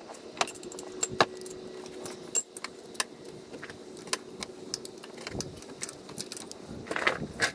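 Metal hand tools, a socket wrench on an extension, clicking and clinking irregularly while the starter's bottom mounting bolt is worked loose from underneath the car, over a faint steady hum.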